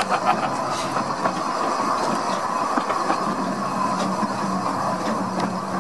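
A narrow-gauge railway carriage running steadily along the track, with a few faint clicks from the wheels.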